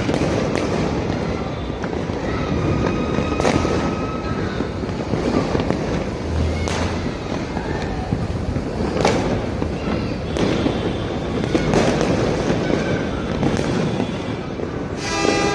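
Fireworks going off: a dense, continuous crackle and rumble, with sharp bangs every second or two.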